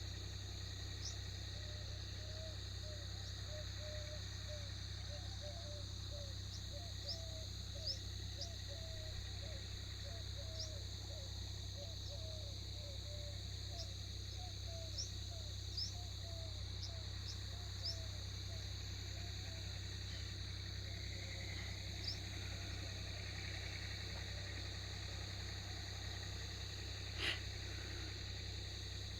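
Birds calling: brief high chirps scattered throughout and a run of quick, low warbling notes over roughly the first half, over a steady high-pitched hum. A single sharp click comes near the end.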